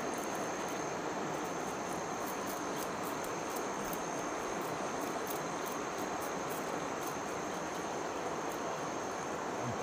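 Steady rush of flowing river water with an insect's continuous high-pitched buzz over it, and faint irregular scrapes of a knife scaling fish.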